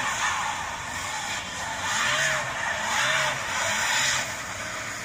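A car's tyres spinning on an icy hill while the engine revs up and down in repeated surges, about once a second: the wheels are losing grip on the ice as the car struggles uphill.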